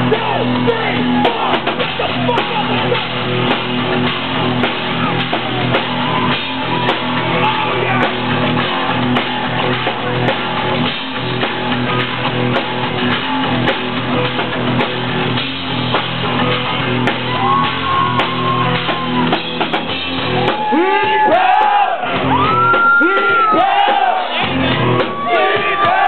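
Loud rock music with guitar and drums. From about twenty seconds in, voices shout and sing over it.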